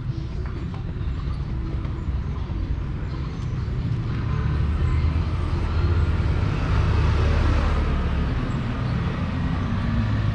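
A car drives along a paving-stone street, its engine rumble and tyre noise swelling from about four seconds in, loudest a little past the middle, then easing off slightly.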